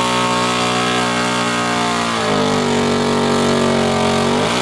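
Big-tyred ATV's engine held at high revs as it fights through deep, thick mud, its wheels churning. The engine note holds steady, drops a little about two seconds in, then dips and climbs again near the end.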